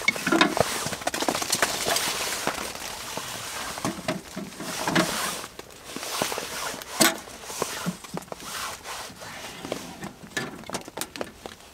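Scattered knocks and crackles as damp kindling is fed into a small steel wood-burning tent stove and starts to catch, with the metal stove door being handled.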